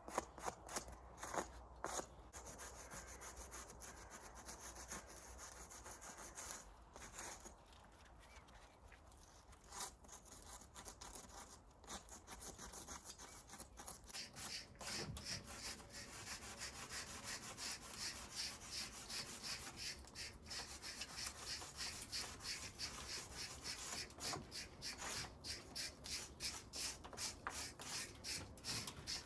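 Hand-worked rubbing or scraping strokes, several a second, repeated back and forth on a hard surface; they ease off for a few seconds early on and pick up steadily again about halfway through.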